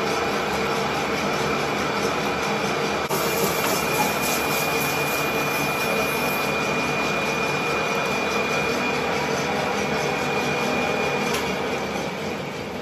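Manual lathe facing a large metal disc under coolant: the tool scrapes steadily through the metal over the machine's running noise, with a thin high whine from the cut for most of the time. The sound fades near the end as the lathe winds down.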